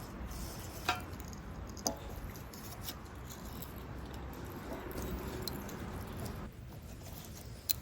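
Wood campfire burning with a steady low hiss and a handful of sharp crackles.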